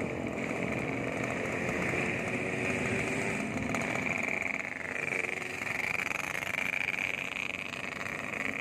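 Two-stroke motorcycle engine running under throttle with a crisp, growling exhaust note; the pitch dips briefly about halfway and then climbs again.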